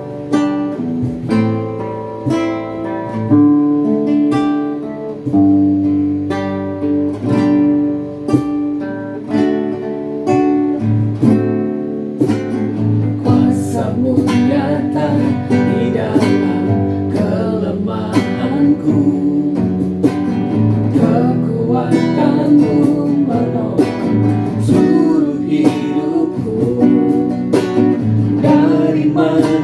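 Christian praise and worship song led by strummed acoustic guitar, with singing joining in about halfway through.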